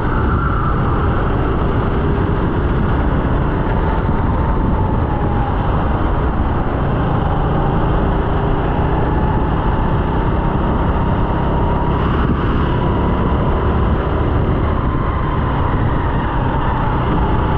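Sodi RT8 rental kart's 13-horsepower engine running steadily at speed on a lap, heard from on board, its pitch sagging a little through a corner and then climbing again, with continuous low rumble and rushing noise.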